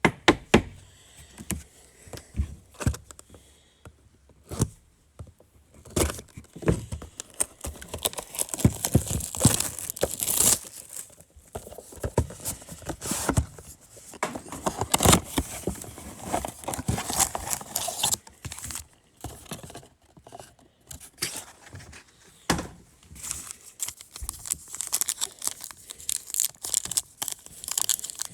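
Trading-card pack wrappers and box wrapping being torn open and crinkled by hand: irregular rustling and sharp crackles, busiest in the middle.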